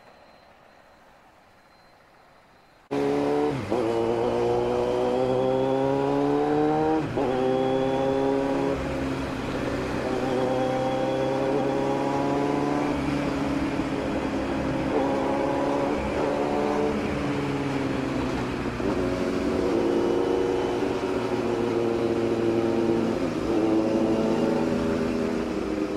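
Near silence for about three seconds, then a Kawasaki Z900's inline-four engine cuts in loud, accelerating through the gears: the pitch climbs and drops back at each upshift, several times, over a steady rush of wind and road noise.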